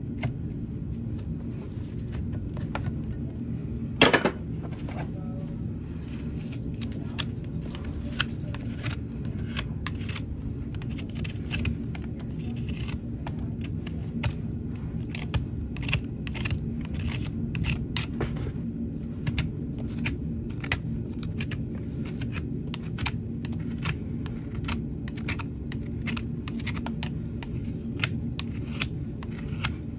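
Hoof knife paring a horse's hoof sole: a long run of short, irregular scraping strokes over a steady low rumble. About four seconds in, a single sharp clink with a brief ring.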